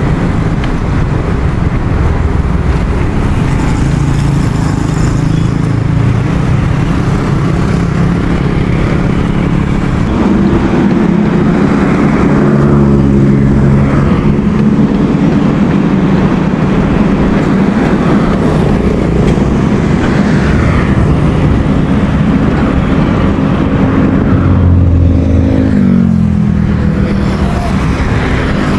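Wind rushing over a handlebar-mounted action camera's microphone while cycling in traffic, mixed with the engines of nearby motorcycles and cars; an engine tone drops in pitch near the end.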